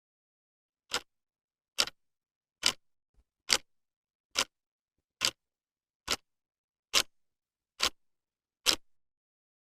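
Clock ticking: ten sharp ticks, a little under one a second, with dead silence between them.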